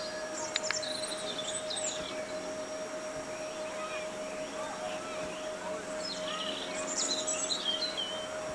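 Birds chirping over a steady hum, with denser bursts of high chirping about a second in and again near the end.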